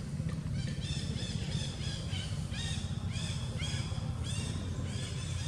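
An animal giving a quick series of short, high calls that rise and fall in pitch, about two a second, starting about half a second in, over a steady low rumble.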